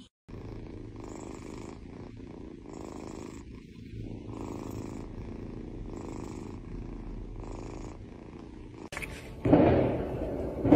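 Kitten purring steadily while being stroked, the purr swelling and easing with each breath about every second and a half. Near the end a louder, rough cat cry cuts in.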